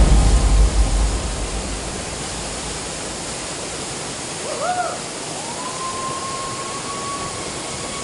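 Waterfall rushing steadily into its plunge pool, with a deep rumble in the first second or so. About five seconds in comes a short high call, followed by a long held high tone that rises slightly.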